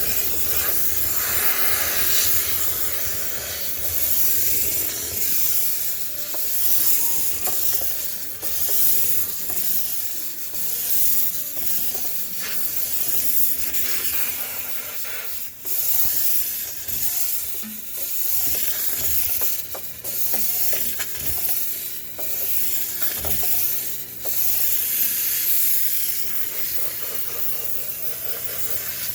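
High-pressure cleaning jet hissing steadily as it sprays the inside of a sneaker washing machine, with a few brief dips where the spray falters or stops for a moment.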